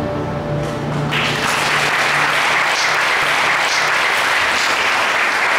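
The last held chord of a choir's song dies away, and about a second in an audience breaks into steady applause.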